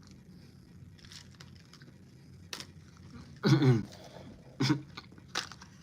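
A person making short disgusted vocal noises, two brief groans about three and a half and four and a half seconds in, with a few small mouth clicks, reacting to a foul-tasting Bean Boozle jellybean.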